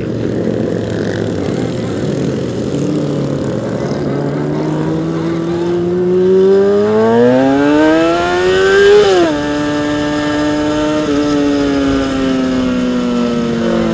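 Kawasaki ZX-6R 636 sport bike's inline-four engine heard from the rider's seat, pulling away with its note climbing steadily for several seconds, then dropping sharply at an upshift about nine seconds in and sinking slowly afterwards as the bike rolls on. Wind rushing over the helmet underneath.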